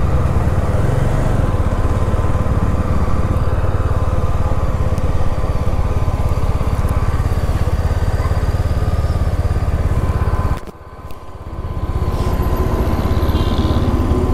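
Yezdi Scrambler motorcycle being ridden, its engine running steadily under the riding noise. About ten seconds in, the sound drops away sharply and builds back over a second or so.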